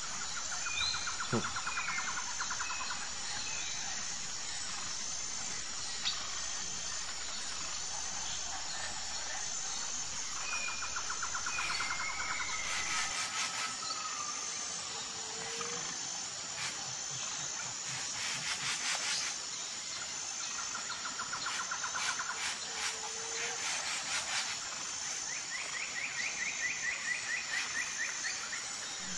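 Outdoor ambience of birds chirping, with several short rapid trills repeating every few seconds over a steady high pulsing insect chirp. Clusters of sharp clicks come about halfway through and again later.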